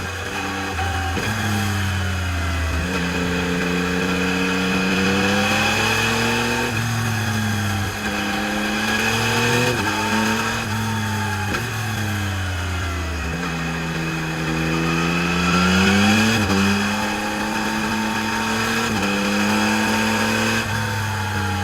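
Yamaha MT-09 SP's inline three-cylinder engine through its stock exhaust, on the move. The engine note climbs and drops back again and again: sudden drops as the rider shifts gear, and slower dips and rises as he rolls off and gets back on the throttle.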